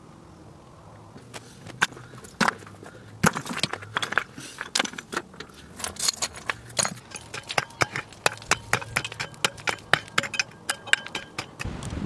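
Loose stones being picked up and set down, clacking and clinking sharply against one another as a dry-stone wall is built. The knocks start about a second in and come faster in the second half.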